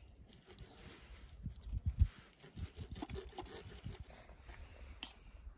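Plastic knife and fork scraping and sawing through a grilled steak on a paper plate, with small clicks and a few soft low thumps, the loudest about two seconds in.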